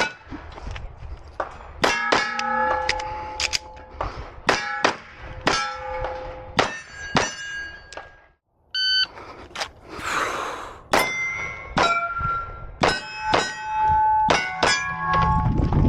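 A 9mm competition pistol firing rapid strings of shots at steel targets, each hit answered by the clang and ringing of a steel plate. There is a brief break a little past halfway before the shooting resumes.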